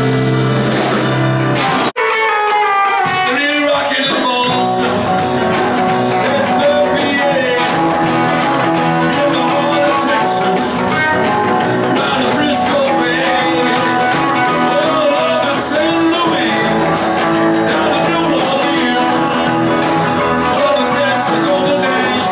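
Live rock and roll band playing: electric guitars, drums and keyboard, with a singer. The sound cuts off abruptly about two seconds in and restarts straight away with a new passage.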